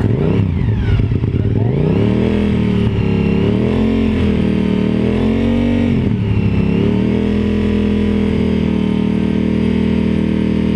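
Honda RC51's 90-degree V-twin engine being revved up from idle to about 5,000 rpm. Its pitch climbs sharply about two seconds in, wavers, dips briefly around six seconds, then holds steady.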